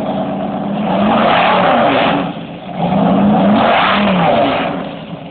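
Ford pickup truck engine revved twice, its pitch rising and falling each time, then dropping back toward idle near the end.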